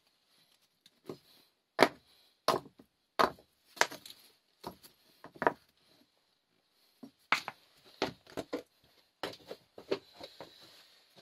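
A series of sharp, irregular knocks and chopping strikes, about fifteen in all, with a pause of about a second and a half partway through.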